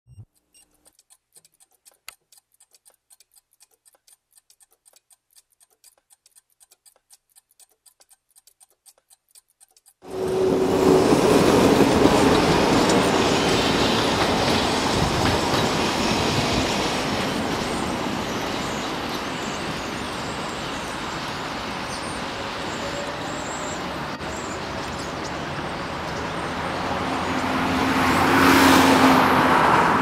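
Faint, regular ticking clicks, then about ten seconds in a sudden switch to steady, loud city traffic noise. It swells and fades near the end as a vehicle passes close by.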